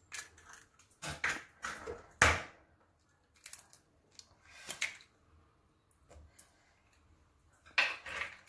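Raw eggs being cracked against a bowl and their shells pulled apart: a series of short sharp cracks and small knocks with quiet gaps between, the loudest about two seconds in.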